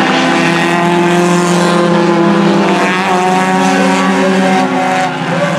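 Four-cylinder stock car engines running hard as two Pro 4 Cylinder race cars pass close by, giving a loud, steady pitched engine note.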